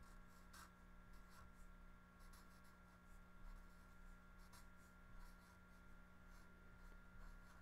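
Faint scratching and squeaking of a Sharpie permanent marker tip writing on paper, in short irregular strokes, over a faint steady hum.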